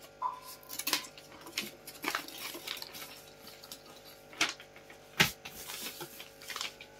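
Scattered light clicks, taps and rustles of craft materials being handled while a small model house's roof piece is made, with one sharper knock about five seconds in.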